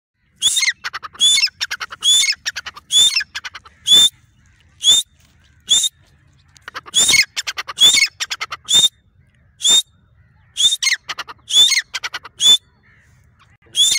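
Female grey francolin calling over and over: loud, harsh calls, each a quick rattling run that ends in a sharp high note, repeated about every half second to a second.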